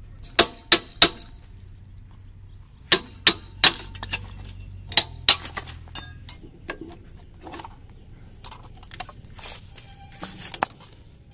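Metal hand tools clinking and tapping against a moped's rusted steel frame and fittings during disassembly: three sharp clinks near the start, three more about three seconds in, two near five seconds, then a short ringing clink about six seconds in, followed by lighter clicks and rattles.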